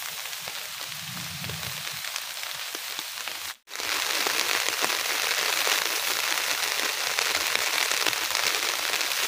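Steady rain falling on the grass, a dense patter of drops. The sound drops out for an instant about three and a half seconds in and comes back a little louder.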